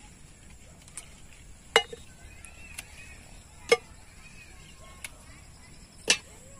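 Okra pods snapped off the plants by hand and tossed into a plastic basin: three sharp clicks, a couple of seconds apart, with a few lighter ticks between them.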